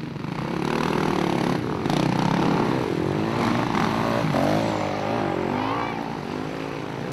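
Enduro motorcycle engines revving, their pitch rising and falling again and again as the bikes race on an off-road track.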